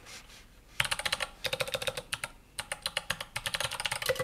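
Typing on a mechanical keyboard with Kailh Box Thick Click Jade clicky switches: a quick run of sharp clicks from the click bars, starting about a second in, with a short pause about halfway, then typing again.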